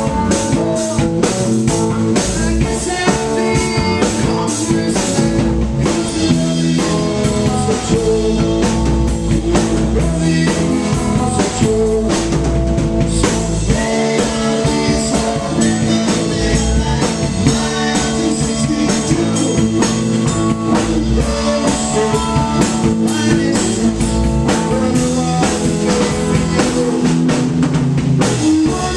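Live rock band playing amplified through a club PA: a drum kit, electric guitars and a man singing into a microphone.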